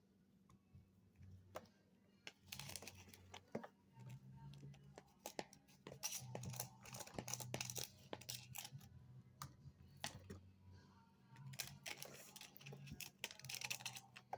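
Irregular clicks, taps and crinkling rustles of craft materials and packaging being handled, over a faint low hum.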